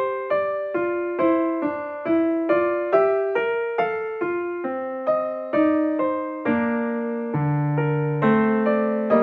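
Background music: a slow electric-piano melody of single struck notes, about two or three a second, each ringing and fading.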